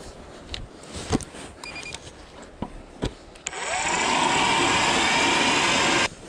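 StrikeMaster Lithium battery-powered ice auger starting up with a rising whine about three and a half seconds in. It runs loud and steady as it drills into the lake ice, then cuts off suddenly near the end.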